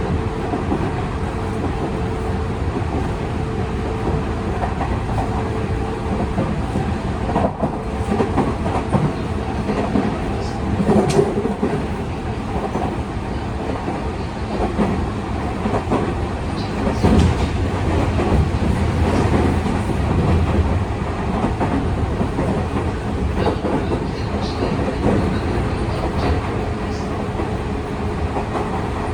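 Tokyu 5000 series train running at speed, heard inside motor car DeHa 5902 with its Hitachi IGBT VVVF inverter and TKM-98 traction motors. A continuous rumble of wheels on rail is broken by clicks as the wheels pass over rail joints. A steady drive hum is heard in the first few seconds and again near the end.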